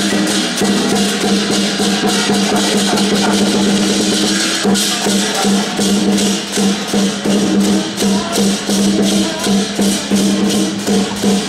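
Lion-dance percussion: a big drum beating with crashing cymbals keeping a steady rhythm, the beat growing more clearly pulsed about halfway through.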